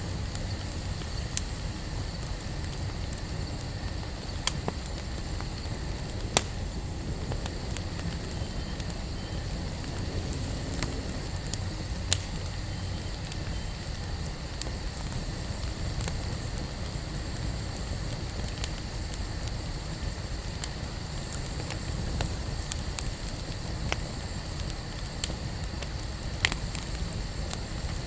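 Wood campfire burning with a steady low rush of flames and scattered sharp crackles and pops, a few seconds apart.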